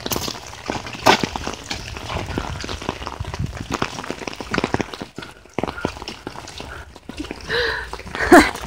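Walking on a wet gravel path in the rain: a run of irregular taps and clicks from footsteps and raindrops, with a brief voice sound near the end.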